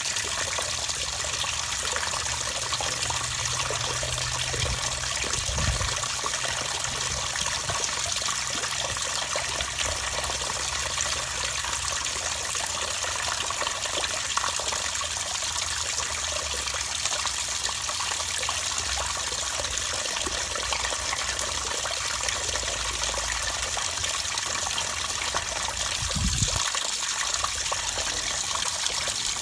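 Water running steadily, an even rush of flowing water with no rise and fall of breaking waves. A low rumble sits underneath, with a soft thump about six seconds in and another near the end.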